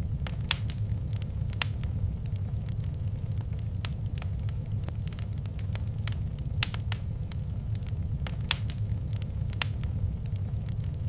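Wood fire crackling in a fireplace: irregular sharp pops and snaps, a few louder than the rest, over a steady low rumble of the burning fire.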